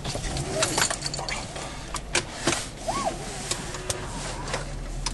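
Car cabin noise: a low steady engine and road hum under a string of sharp clicks and knocks.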